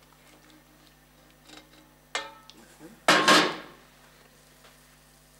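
Metal kitchenware sounds: a clink with a short ring about two seconds in, then a louder clatter as a copper saucepan is set down on the iron stovetop a second later. A faint steady hum lies underneath.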